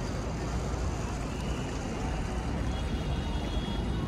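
Steady outdoor rumble of wind buffeting the microphone, with faint voices of passers-by.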